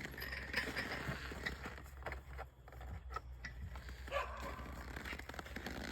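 Sled dogs barking and yelping, mixed with scattered short clicks and knocks over a steady low rumble.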